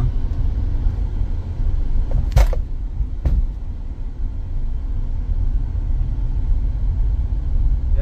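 Cabin of a moving 2024 Hyundai i20 with steady low road rumble and sharp rattling clicks from the passenger-side dashboard: one loud click about two and a half seconds in, a faint one just before it and another a second later. It is a trim rattle in the new car's dash that the owner has not yet traced.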